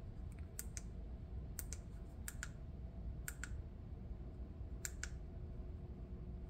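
Light plastic clicks, often in quick pairs and irregularly spaced, as a stack of trading cards in rigid plastic holders is shuffled and rearranged in the hand.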